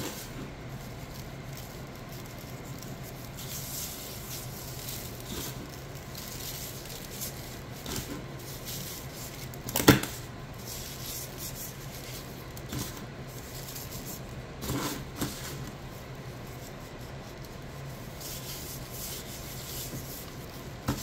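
Gloved hands rubbing seasoning salt onto raw steaks and turning them on a paper plate: soft rubbing and handling noises, with one sharp knock about ten seconds in, over a steady low hum.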